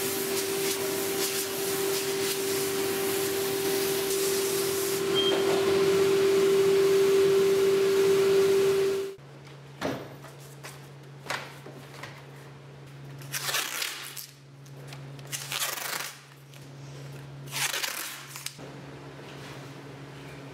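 A stationary sanding machine runs loudly with a steady tone as an end-grain cutting board passes under it, and stops abruptly about nine seconds in. Then a random orbital sander runs with a quieter, steady low hum that rises and falls a few times.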